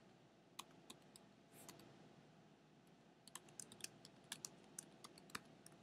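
Faint typing on a computer keyboard: a few scattered keystrokes, then a quicker run of key clicks in the second half.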